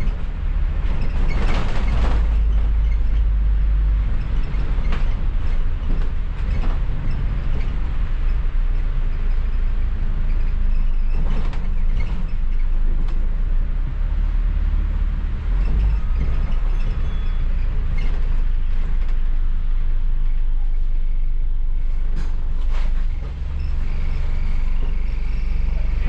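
Double-decker bus running, heard from the upper deck: a steady low engine and road rumble with occasional knocks and rattles from the bus body.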